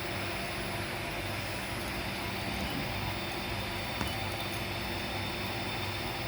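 Steady whirring hum of the laser welding machine's cooling fans running, with a single faint click about four seconds in.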